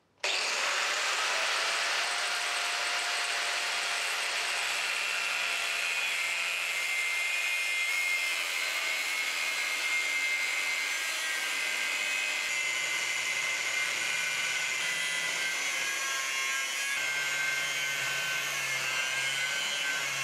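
Angle grinder with a thin cut-off disc cutting a lengthwise slit into the end of a square C45 steel bar, a steady high whine over a hiss. It starts abruptly just after the start and runs without a break.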